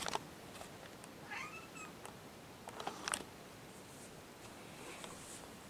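A cat gives one short meow that rises and falls, about a second and a half in. A few soft taps and rustles follow about three seconds in.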